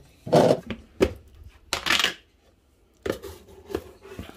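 A plastic food container and its lid being handled and dry rice scooped out: a few short knocks and clatters with two brief rustling scrapes.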